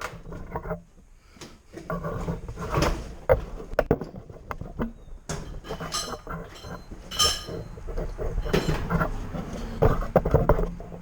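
Irregular clanks and knocks, like metal tools and parts being handled, over a low steady hum.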